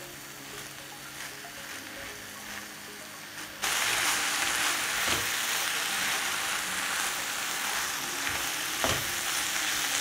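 Minced meat and vegetable filling sizzling in a non-stick frying pan while being stirred and scraped with a silicone spatula. The sizzle gets suddenly much louder about a third of the way in.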